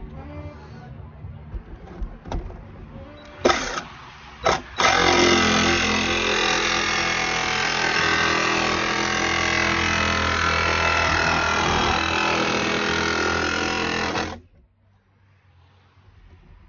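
Jigsaw cutting through a van's sheet-metal roof: two short starts about three and a half and four and a half seconds in, then about ten seconds of steady cutting that stops abruptly.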